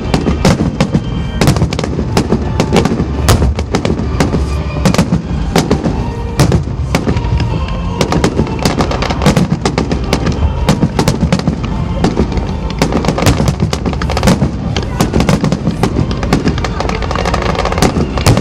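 Fireworks display: a dense, continuous barrage of shell bursts and crackles, several bangs a second over a steady low rumble.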